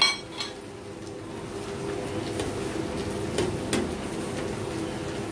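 A steady low hum in the kitchen, with a few light knocks and soft rustles as a phulka on a flat griddle (tawa) is pressed down with a cloth. A sharp click comes right at the start.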